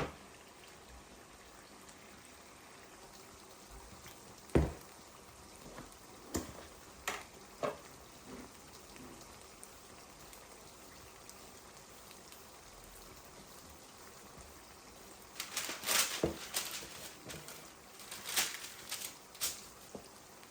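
Kitchen work sounds: a few separate knocks and clinks, then a busier run of quick clatter late on, over a faint steady hiss.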